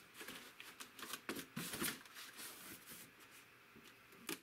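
Plastic-bagged model parts and a styrofoam packing tray being handled: irregular rustling with small knocks and clicks, loudest about a second and a half in.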